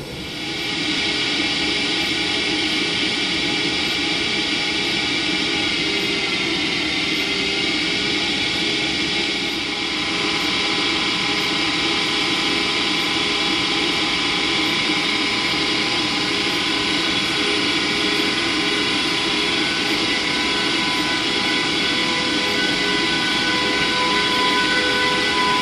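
DB Class 101 electric locomotive hauling an InterCity slowly out of the station: a steady whine of many tones from its blowers and traction equipment, with pulsing tones growing stronger near the end as it pulls away.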